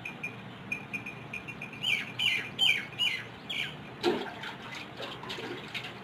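Birds calling: a steady string of short, high chirps, with a run of about five louder, falling squawks in the middle and a lower call just after them.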